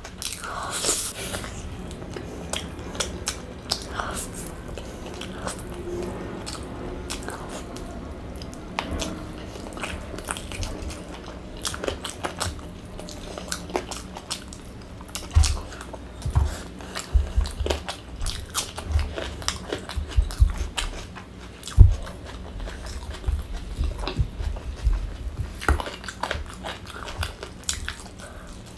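Close-miked chewing and biting of chicken and biryani rice eaten by hand, with many short wet smacking clicks. From about halfway in, a run of dull thumps joins the chewing, the loudest a little after the 20-second mark.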